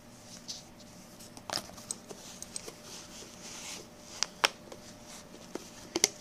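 A cat's paws and claws scrabbling at a furry fox tail on carpet: scratchy rustling with a few sharp clicks, the loudest two close together about four seconds in.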